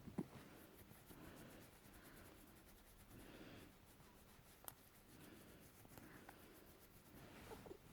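A sleeping cat breathing softly with faint snores, a soft breath in or out about once a second. A single small click comes about halfway through.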